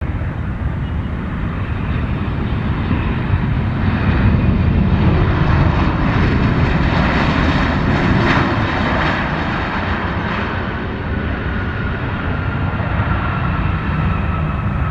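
Jet airliner engines running loudly as an aircraft passes. The roar swells to its loudest midway, then eases, with a high whine that slowly drops in pitch near the end.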